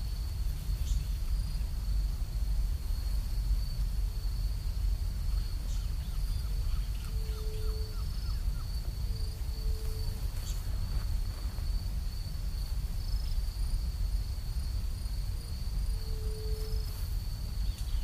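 Nature ambience: a steady high insect drone over a low rumble, with a short low tone that comes back every few seconds and a brief run of soft ticks about six seconds in.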